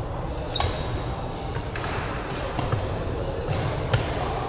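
Badminton rally: several sharp smacks of rackets hitting the shuttlecock, the loudest about four seconds in, with soft thuds of players' feet on the wooden court. It all echoes in a large sports hall.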